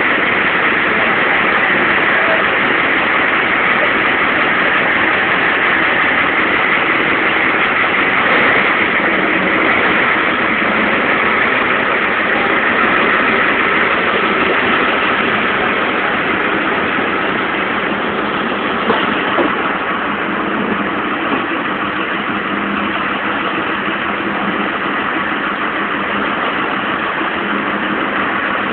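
Boat engine running steadily under a constant rushing hiss, with faint steady tones in the drone.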